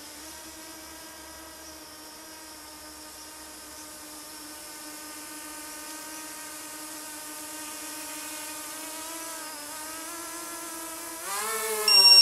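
Mini tricopter's motors and propellers buzzing in flight, a steady hum that dips a little and then rises sharply in pitch as it throttles up near the end. Right at the end a loud, high electronic beep sounds: a low-battery warning.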